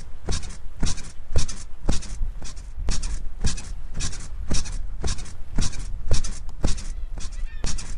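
Bed springs squeaking in a steady rhythm, about two squeaks a second, each with a soft knock under it, over a low steady rumble.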